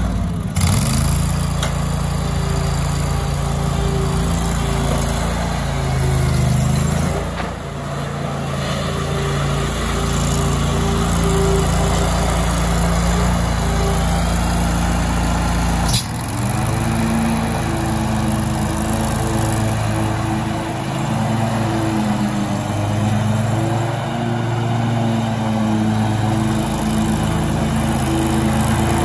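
Hustler stand-on lawn mower's engine running steadily as the mower is driven about, its note shifting a little with the throttle. About halfway through there is a sharp click and the engine settles into a slightly different note.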